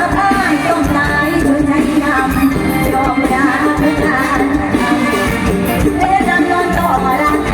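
A singer with band accompaniment performing a Thai song, the sung melody running over steady instrumental backing.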